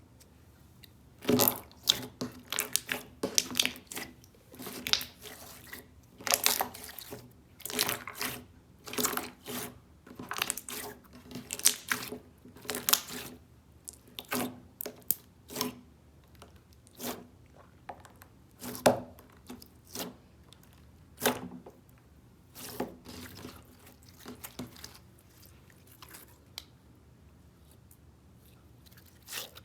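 Close-up crunching and crackling of a crunchy ASMR material being squeezed or cut, in many short irregular bursts that thin out near the end.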